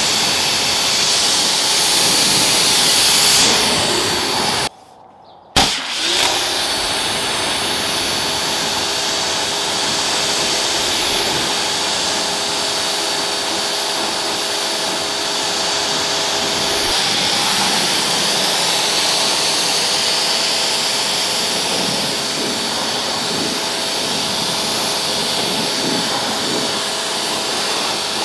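Pressure washer spraying water over a truck's engine bay: a steady rushing hiss with the machine's whine under it. It cuts out for under a second about five seconds in and comes back with a sharp hit.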